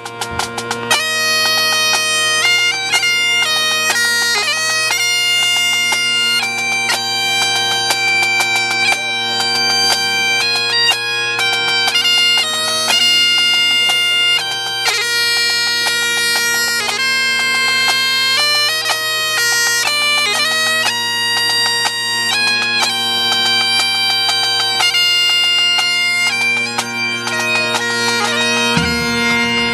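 Massed pipe band of Great Highland bagpipes playing a tune together over their steady drones, the chanter melody coming in about a second in after a few sharp drum taps.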